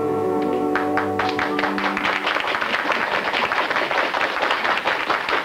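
Studio audience applause: a few scattered claps about half a second in, swelling within a second or so into dense, steady clapping. Under it the dance-band orchestra holds the final chord of the ballad, fading out after about two seconds.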